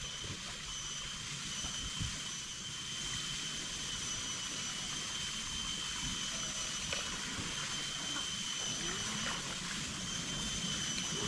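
Steady rainforest ambience: flowing water rushing at a jungle pool, under a constant high-pitched insect drone.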